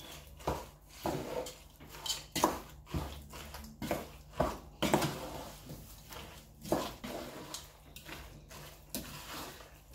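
A wooden spoon stirring and tossing abacha in a granite-coated pot: irregular scrapes and knocks of the spoon against the pot, about one or two a second.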